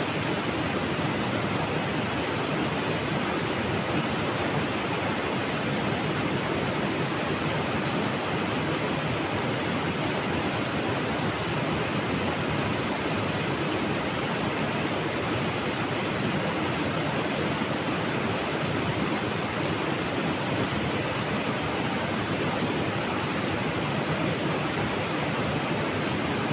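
Shallow rocky river rushing steadily, an even unbroken water noise.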